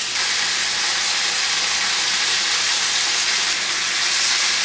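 Chicken pieces sizzling steadily in hot oil in a frying pan.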